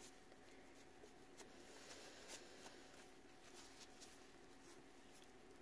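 Near silence: faint, scattered rustling and light ticks from a crumpled paper towel handled in gloved hands, over steady room tone.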